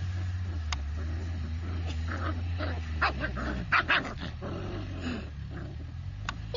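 Two F1B Labradoodle puppies play-fighting, growling in short bursts that are loudest around the middle.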